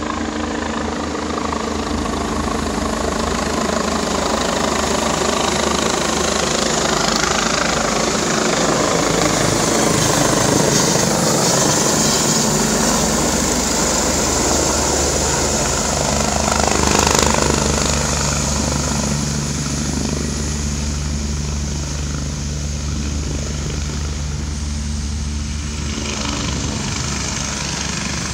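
Airbus EC145 twin-turbine medical helicopter descending and landing: a steady rotor and turbine noise, loudest as it comes down low over the field, then easing a little about two-thirds of the way in as it sits on the ground with the rotor still turning.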